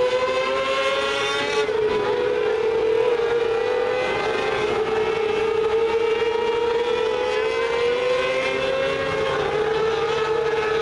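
Engines of several mini sprint cars running at high revs around a dirt oval: a continuous high-pitched engine whine that rises and falls slightly in pitch as the cars go through the turns.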